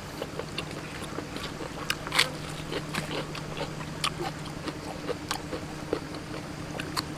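Close-up mouth sounds of a man chewing raw beef: many short, wet smacks and clicks, the loudest about two seconds in, over a steady low hum.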